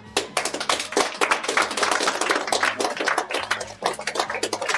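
A small group of people applauding: many fast, overlapping hand claps that start at once and go on steadily.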